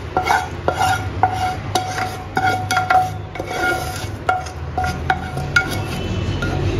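Wooden spoon scraping and knocking roasted vermicelli out of a non-stick frying pan into a pot of milk: repeated irregular knocks, each making the metal pan ring briefly, over a low steady hum.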